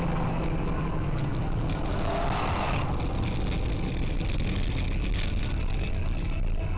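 A vehicle on the move: steady engine and road noise, with a brief swell of hiss about two seconds in.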